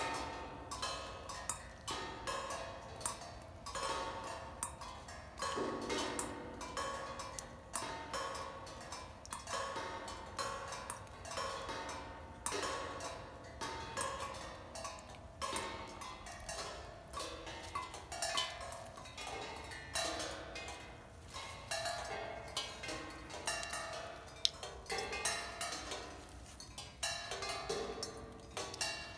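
Raindrops striking several cymbals set out in the open, giving irregular metallic pings and ticks, several a second, each with a short ringing tone.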